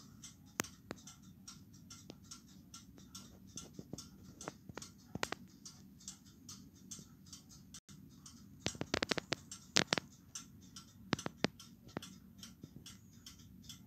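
A c.1700 Italian lantern clock's verge and crown-wheel escapement ticking steadily as the weight-driven going train runs. There are louder, sharper clicks about nine to ten seconds in.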